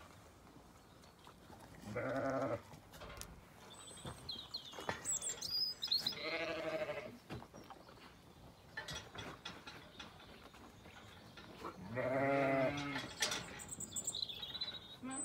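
Zwartbles sheep bleating while penned and waiting for their feed: long wavering bleats about 2, 6 and 12 seconds in, and a shorter one near the end.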